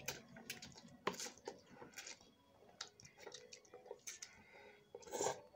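Quiet mouth sounds of someone eating noodles: irregular small wet clicks and smacks of chewing, with longer slurps about a second in and near the end.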